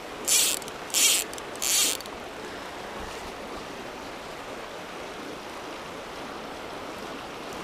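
Fly reel's click drag ratcheting in three short buzzes about two-thirds of a second apart, then a small creek flowing steadily over rocks.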